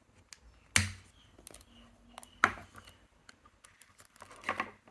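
Hands handling packaging: scattered light clicks and taps, with two louder knocks about one and two and a half seconds in.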